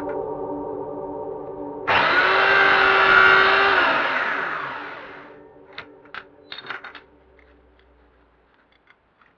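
A handheld power tool switches on abruptly, runs at speed for about two seconds, then is switched off and spins down with falling pitch. A few short clicks follow.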